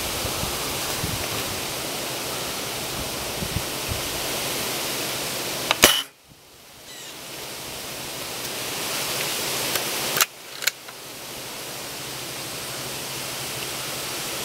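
A single shot from a .22 pellet air rifle about six seconds in, one sharp crack, over a steady hiss; the background drops away right after it and slowly comes back. Two quieter clicks follow about four seconds later.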